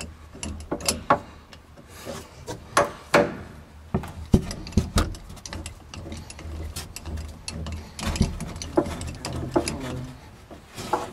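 A bolt, socket and extension being worked by hand through an access hole in a Mercedes W204 C300's trunk floor: irregular metal clicks, scrapes and knocks against the sheet metal as the bolt is fed toward the differential cover, with a few sharper knocks around the middle.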